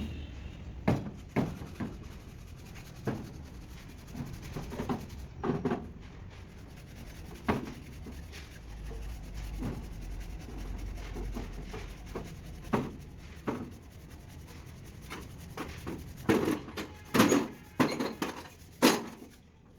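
Irregular sharp knocks and rubbing from hand work, about a dozen knocks at uneven intervals, coming thicker and louder near the end.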